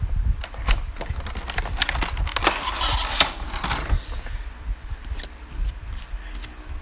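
A cardboard model box being handled and opened close to the microphone: a run of light taps and clicks, with a scraping, rustling slide of cardboard from about two and a half to four seconds in.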